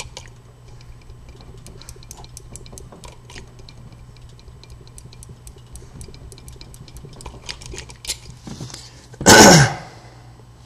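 Light, irregular metallic clicking and ticking of a blank key being rocked and turned in the keyway of an old wafer padlock, the wafers binding and marking the blank during impressioning. A loud, short vocal sound that falls in pitch comes about nine seconds in.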